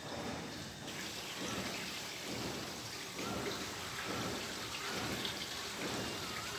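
Steady hiss of rain-like noise.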